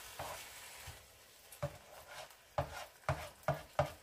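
A faint frying sizzle in the first second, then about five light knocks and taps of kitchen utensils against cookware in the last two and a half seconds.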